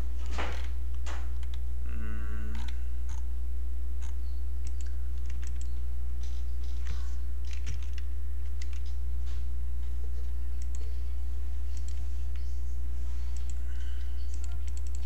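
Computer keyboard keystrokes and mouse clicks, scattered and irregular, over a steady low electrical hum. A short wavering pitched sound comes about two seconds in.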